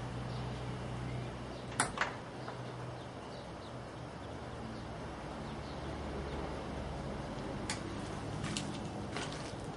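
Steady low electrical hum from the variac and step-down transformer driving heavy current through an overloaded coiled extension lead. A few sharp clicks come about two seconds in and again near the end.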